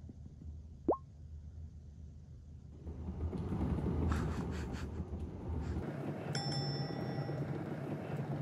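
A cat exercise wheel rolling with a steady noise as a tabby cat runs in it, starting about three seconds in. About a second in there is a short rising 'bloop' sound effect, and from about six seconds a ringing ding.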